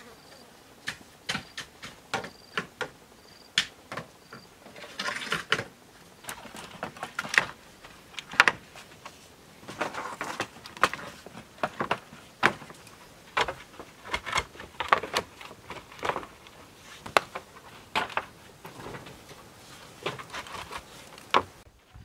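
Irregular knocks and clatter of bamboo poles being handled and struck while a bamboo frame is put together, some knocks coming in quick runs.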